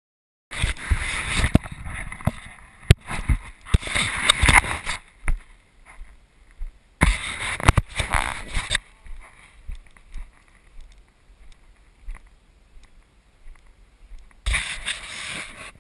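Wind buffeting an action camera's microphone in three gusty bouts, with sharp knocks from the camera being handled and moved.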